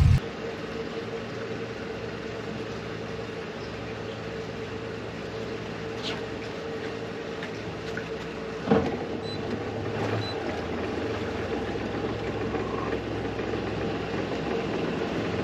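Suzuki outboard motor idling steadily with a low hum and a constant tone, with a single thump a little past the middle.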